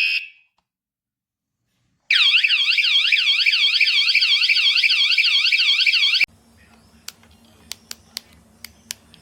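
Mengshen wireless anti-theft bike alarm: a short high beep, then about two seconds later its siren warbling loudly, roughly three times a second, for about four seconds before cutting off suddenly. A faint low hum with a few sharp clicks follows.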